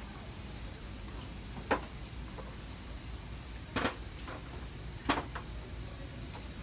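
Three sharp knocks a second or two apart, the middle one a little longer, as things are handled on store shelving, over a steady low background hum.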